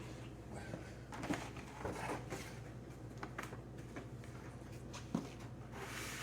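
Faint, scattered light clicks and knocks over a steady low hum, the sharpest knock about five seconds in.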